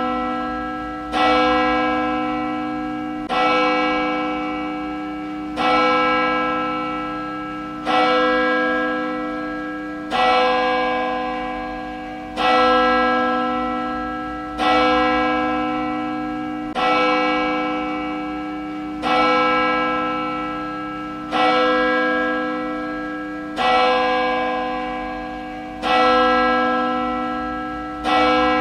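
A single church bell tolling at a steady pace, one stroke about every two seconds, each stroke ringing on and fading into the next.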